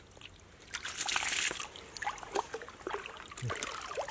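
Water splashing and trickling, with a louder rush of splashing about a second in.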